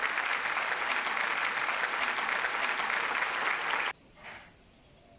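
Applause, a dense clapping that cuts off abruptly about four seconds in.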